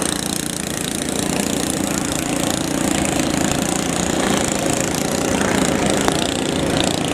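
Small 7 hp engines of vỏ lãi long-tail racing boats running hard, a steady engine drone mixed with wind and water noise.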